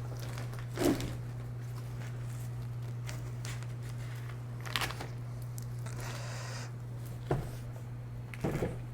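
Hands working on a disco light fixture: a few separate clicks and knocks of parts being handled, the loudest about a second in, over a steady low hum.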